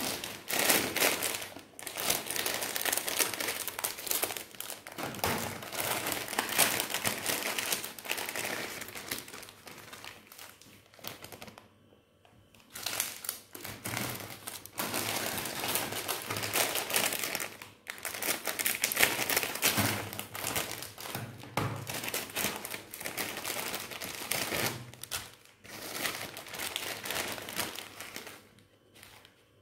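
Plastic Mieghetti instant-noodle packets crinkling and rustling as hands open them and handle the wrappers and seasoning sachets, in runs of several seconds with a few brief pauses.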